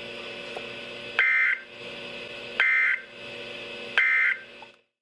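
Three short bursts of weather-radio SAME data tones, a rapid two-tone warble, about 1.4 s apart. This is the end-of-message code that closes an emergency alert broadcast. They sit over a steady radio hum that cuts off just before the end.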